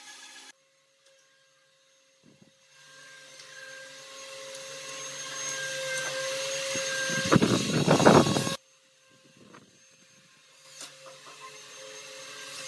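Cordless drill motor running in two stretches, most likely driving screws into pallet-wood slats. The first builds over several seconds to a loud, noisy peak and cuts off suddenly. The second starts near the end.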